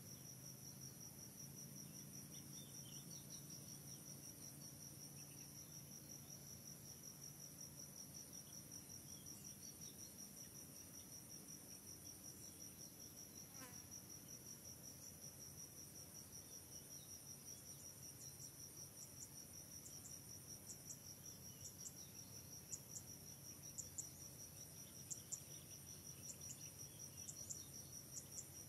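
Faint, steady high-pitched trill of insects. Short, sharp high chirps join in and repeat through the last third.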